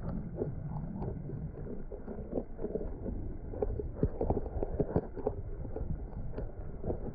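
Heavy rain, with irregular drops tapping close to the microphone over a low rumble of wind noise.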